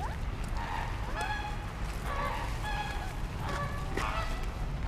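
Several short, pitched honking bird calls in quick succession, over a steady low rumble.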